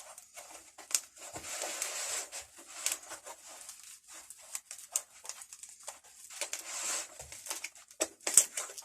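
Layered tool-box lining foam being peeled out of a knife-cut pocket by hand: soft rustling and tearing with scattered small clicks, in two longer stretches of rustle.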